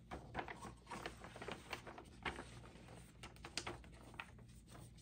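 Large printed paper poster rustling and crackling as it is handled and folded: a run of short, irregular crinkles that thin out after about four seconds.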